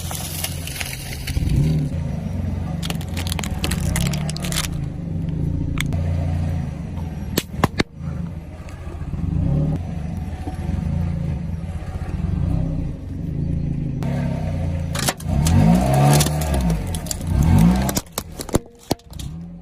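A car engine runs at low speed while the tyres roll over objects, with several sharp cracks and crunches as things are crushed, and a couple of brief revs near the end.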